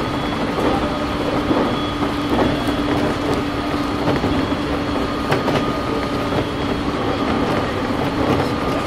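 JR 701-series electric train running at a steady speed, heard from inside the car: continuous wheel-on-rail running noise with a steady hum under it and occasional clicks from the wheels.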